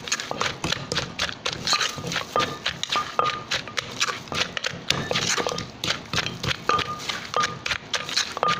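Wooden pestle pounding in a mortar at about two or three strikes a second, crushing chillies, tomato, peanuts and dried shrimp for som tam. A spoon scrapes around the mortar between strikes, and some knocks leave a short ring.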